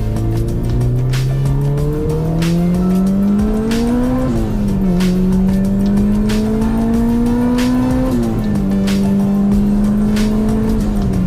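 Turbocharged Honda Civic Si four-cylinder engine accelerating hard through the gears. The revs climb, drop at an upshift about four seconds in, climb again, drop at another shift about eight seconds in, then hold steady. Music plays underneath.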